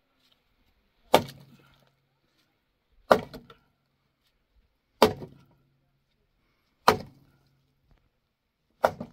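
A thick piece of firewood swung down hand-held and struck hard, five heavy blows about two seconds apart. Each blow is a sharp knock with a brief low ring after it.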